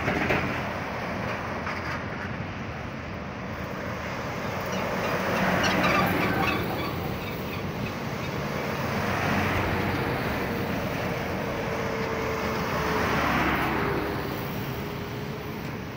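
Fire engines' truck engines and tyres on the road as they drive through an intersection, the sound swelling three times as the vehicles pass. A faint steady whine comes in during the second half; no siren is sounding.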